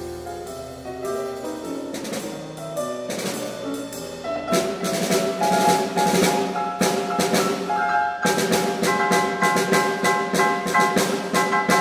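Grand piano and percussion playing together. Pitched piano notes, then from about four and a half seconds a louder, busier passage with quick, rhythmic drum strokes.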